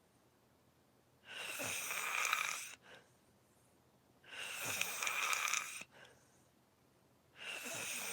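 Snoring in sleep: three long, breathy snores about three seconds apart, each lasting about a second and a half, with quiet breathing between them.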